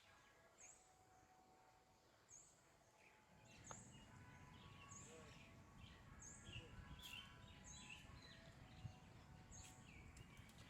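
Faint bird calls: a high chirp repeated about once a second, with lower downward-sliding calls in between, over a low rumble that comes in a few seconds in.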